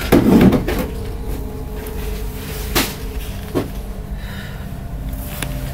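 A background drone of low, steady held tones, with a brief louder rustle right at the start and two short sharp clicks about three seconds in.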